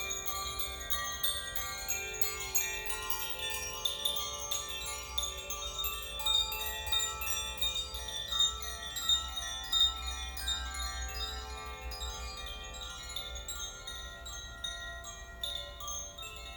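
Koshi chimes being rung: many quick, overlapping strikes, each tone ringing on with shimmering overtones, in a steady wash with a few louder strikes standing out.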